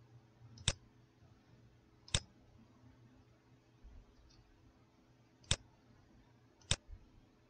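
Computer mouse button clicked four times: single sharp clicks a second or more apart, as menu items and wizard options are selected. A faint steady low hum lies underneath.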